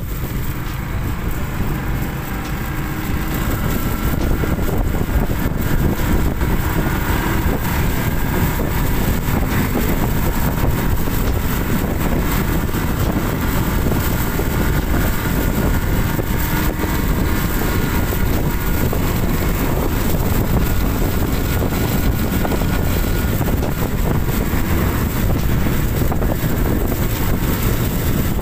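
Steady rushing wind and road noise from a vehicle travelling along a road, building up over the first few seconds and then holding steady.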